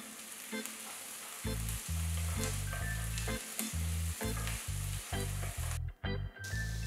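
Chopped onions, green chillies and capsicum sizzling in hot oil in a kadai, stirred with a wooden spatula, with light taps of the spatula on the pan. A low, pulsing music beat comes in about a second and a half in.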